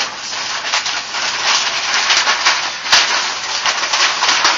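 Sheets of paper being crumpled and rustled in the hands: a dense, loud crackling made of many small crisp crinkles, easing off near the end.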